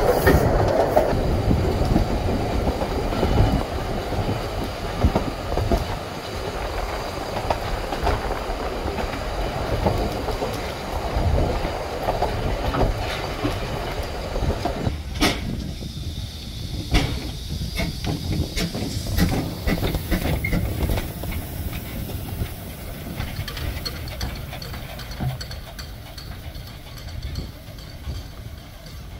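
Narrow-gauge steam train carriage on the move: a steady rumble with the clickety-clack of wheels over rail joints. About halfway through this gives way to a quieter stretch with scattered clicks.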